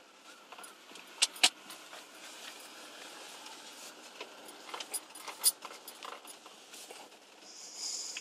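Light metallic clicks and rattles, a few sharp ones standing out: a pair about a second and a half in and another about five and a half seconds in.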